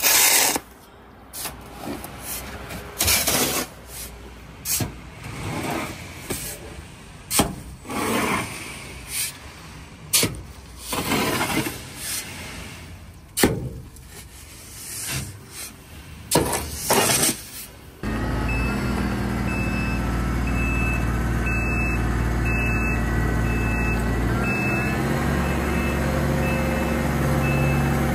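Irregular loud rushing and knocking bursts, each about half a second to a second long, then from about two-thirds of the way through a heavy diesel vehicle running steadily with its reversing beeper sounding about once a second.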